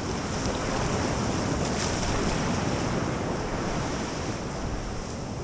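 Ocean surf washing onto the beach, a steady rush that swells a little and then eases, with wind buffeting the microphone.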